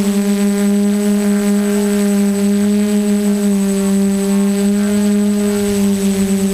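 QAV 500 quadcopter's brushless motors and propellers humming in flight as heard from the onboard camera, a loud steady drone that rises and dips slightly in pitch, with a thin high whine above it.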